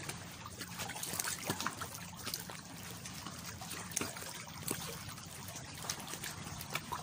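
Small sea waves lapping and trickling over shoreline rocks close by, with a steady wash broken by many small splashes and clicks of water.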